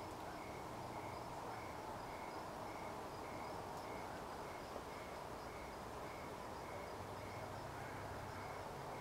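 A cricket chirping in an even rhythm, a little under two chirps a second, over a faint steady outdoor hiss.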